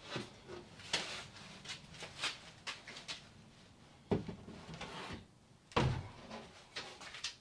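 Knocks, bumps and light scrapes of a large MDF torsion-box table top being handled on edge and moved into place against a wall, with two heavier low thumps about four and six seconds in.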